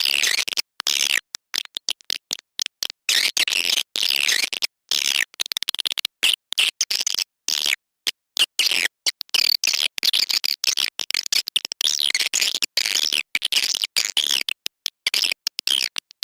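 Swiftlet call recording: dense, rapid high twittering and chirping of edible-nest swiftlets, broken by many brief silent gaps. It is a lure track of the kind played to draw swiftlets into a swiftlet house to roost and nest.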